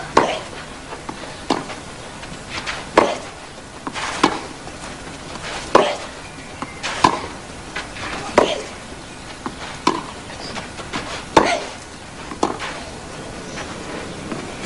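Long baseline tennis rally on a clay court: the ball struck back and forth off the racket strings about once every one and a half seconds, with fainter ball bounces between the strokes.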